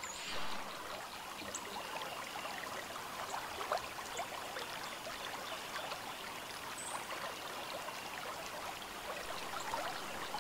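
Steady, even background hiss with a few faint, short high chirps.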